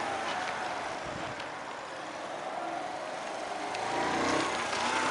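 Engine of a 1982 Honda Passport C70 step-through motorcycle, a small four-stroke single, running under way on a test ride. It fades as the bike moves off and grows louder from about four seconds in as it comes back.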